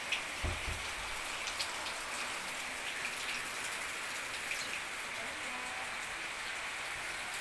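Steady rain falling on leaves and ground, a constant hiss with a few louder individual drops ticking now and then.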